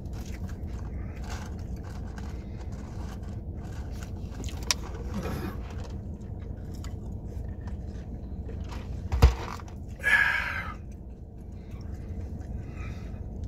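Chewing and eating sounds over a steady low hum, with a sharp knock about nine seconds in and a short rustling burst just after it.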